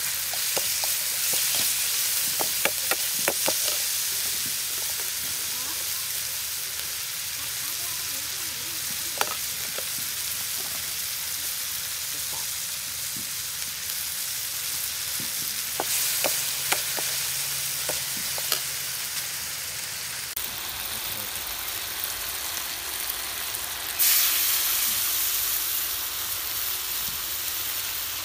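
Shallots, lemongrass and chillies frying in a steel wok: a steady sizzle, with a steel ladle clinking and scraping against the wok now and then as the food is stirred. Near the end the sizzle turns sharply louder.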